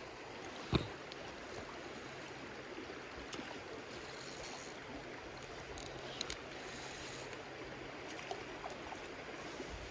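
Shallow, stony creek running steadily over its rocky bed. A sharp click sounds about a second in and another near the middle.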